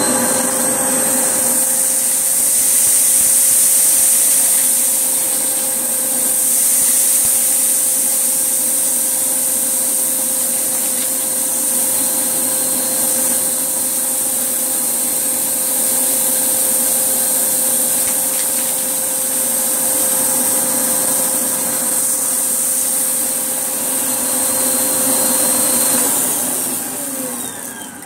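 Hoover Blaze canister vacuum cleaner running steadily with its motor whine, fitted with a parquet brush head and sucking up spilled rice from the floor. Near the end it is switched off and the motor winds down in falling pitch.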